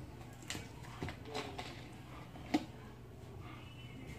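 A few small clicks and taps as a plastic screw cap is twisted off a glass sauce bottle, the sharpest about two and a half seconds in, over a faint low hum.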